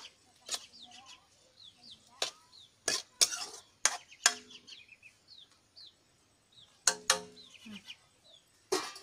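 A metal ladle clinking and scraping against a steel kadai as a thick curry is stirred, in sharp irregular knocks about a second apart. Birds chirp in short falling notes between the knocks.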